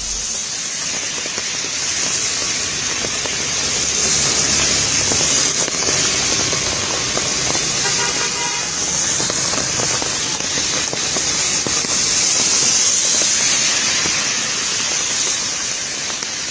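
Heavy rain falling steadily, with vehicle tyres hissing through water on a wet road, and a brief car horn about halfway through.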